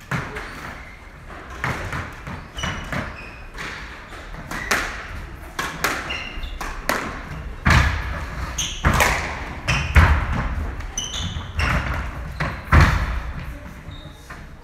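A squash rally: a rubber squash ball struck by rackets and smacking off the court walls in repeated sharp, irregularly spaced impacts that echo briefly, with short high squeaks from shoes on the wooden floor between hits.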